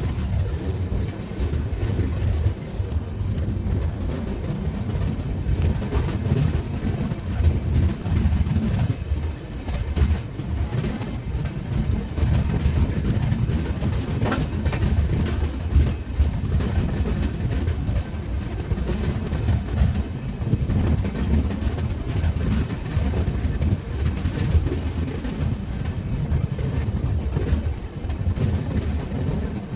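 Passenger train running along the track: a steady low rumble of the wheels on the rails, with frequent short clicks and knocks throughout.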